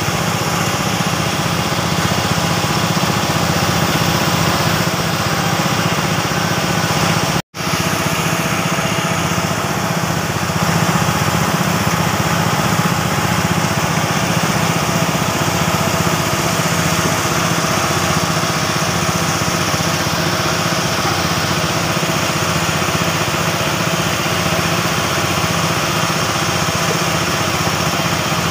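A small engine running steadily at an even speed, a constant droning hum. The sound cuts out completely for an instant about seven seconds in.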